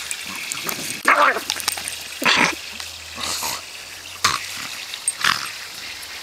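A Staffordshire bull terrier making about five short, rough noises roughly a second apart while mouthing rubber balls.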